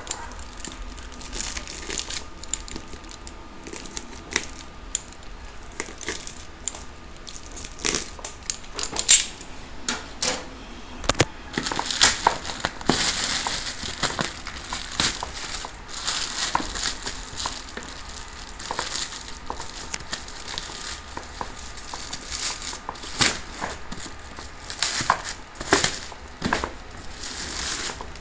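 Clear plastic wrapping crinkling and tearing as it is pulled off a cardboard headset box by hand. It gives irregular crackles and rustles throughout, busiest about twelve to sixteen seconds in.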